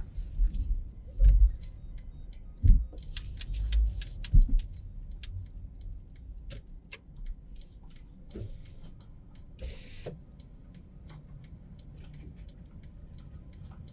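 A car driving slowly, heard from inside: a few heavy low thuds in the first five seconds as it goes over bumps, with irregular light clicks and rattles. After that it settles to a quieter steady running hum.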